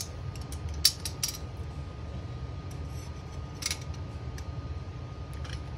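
Steel trigger guard and hinged floorplate of a Remington 700 BDL being handled and seated into the wooden stock: a handful of sharp metallic clicks and clinks, the loudest about a second in. A steady low hum runs underneath.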